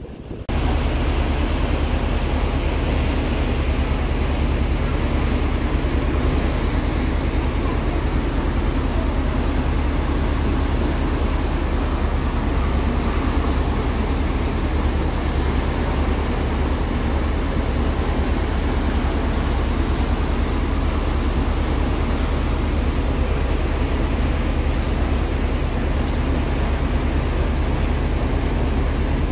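Steady rumble and rush aboard a moving tour boat: the low drone of the engine with the churn of the wake and wind on the microphone. It starts abruptly about half a second in, then holds even.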